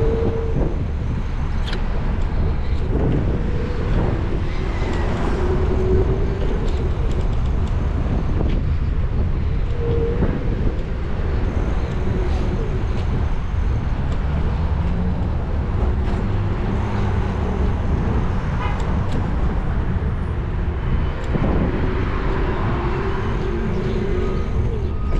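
Car driving through city street traffic: a steady low rumble of road and engine noise, with traffic around it.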